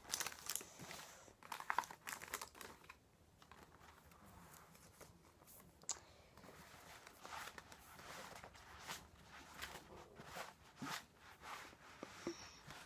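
Faint, scattered crinkling and rustling of trading cards and a foil booster-pack wrapper being handled, with small clicks of the cards against each other.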